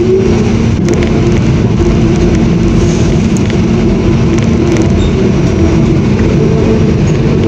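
New York City subway train running at speed, heard from inside the car: a loud, steady rumble of wheels on rail with a steady motor hum, which settles just after a short rising whine at the start.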